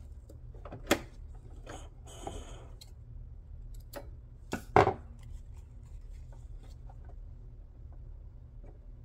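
Scattered light clicks and knocks, with a short paper rustle about two seconds in, as the paper-and-fabric piece is handled and repositioned at a stopped sewing machine. A pair of sharper knocks near the middle is the loudest sound, and a low steady hum runs underneath.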